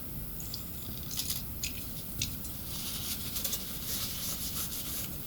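Tissue rubbing and wiping, a dry scratchy scuffing in short strokes, as old thermal paste is cleaned off with contact cleaner ahead of re-pasting.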